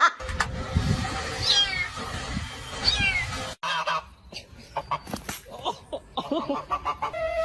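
An animal calls twice, with short falling cries about a second and a half apart over background noise. After a sudden cut come a scatter of light taps and knocks.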